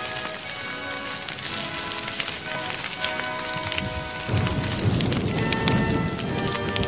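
Fire crackling as a tree and a pile of tires burn, under background music. About four seconds in, a louder low rumbling noise comes in.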